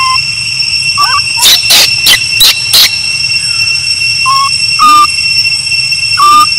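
Baby macaque giving short whimpering coo calls, some rising in pitch, about a second in and several more near the end, over a steady high-pitched whine; a quick run of sharp ticks comes between the calls.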